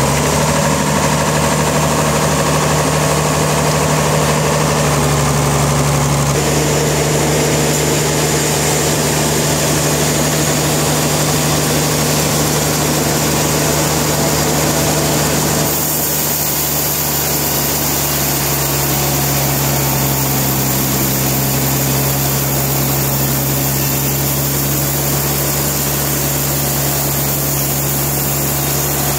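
Sawmill machinery running steadily with a low engine drone, its tone shifting about six seconds in and again near sixteen seconds.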